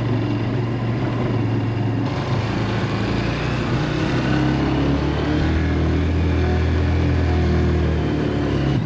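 Motorcycle engine of a Philippine tricycle (motorcycle with sidecar) running under way, heard from the passenger seat. The engine note shifts in pitch as the ride speeds up and slows, and is strongest a few seconds before the end.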